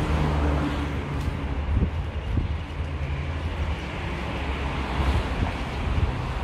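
Street background noise with a steady low engine hum.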